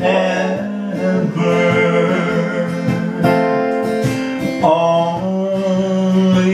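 Acoustic guitar strummed in a slow country ballad while a man sings a long held word, his voice doubled by electronically generated harmony voices from a Harmony Singer effect.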